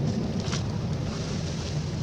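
Steady low wind rumble on the microphone, with one faint short high chirp about half a second in.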